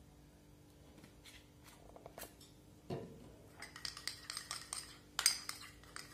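Metal spoon stirring melted chocolate in a small ceramic bowl. A few scattered taps come first, then from about three and a half seconds in a quick run of clinks and scrapes against the bowl.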